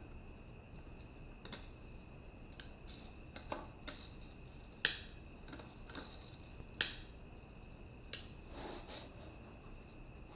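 Steel tire irons clicking and knocking against a motorcycle wheel rim while a tire bead is worked loose by hand, a few scattered sharp clicks with the loudest about five seconds in.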